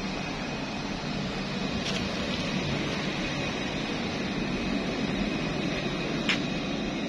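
Steady street background noise of passing traffic, an even hum, with two faint clicks about two seconds in and near the end.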